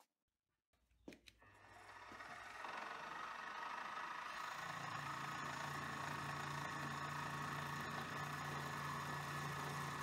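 Milling head of an Optimum hobby lathe/mill combo switched on about a second in, its spindle motor running up to speed and then running steadily. An end mill is drilling a hole in aluminium plate, and the tone shifts about four and a half seconds in.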